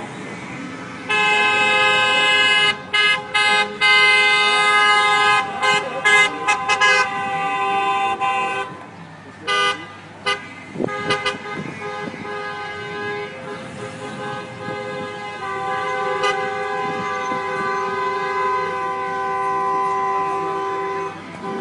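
Car horns honking: a long blast starting about a second in, then a string of short toots, and long steady honking again through the second half.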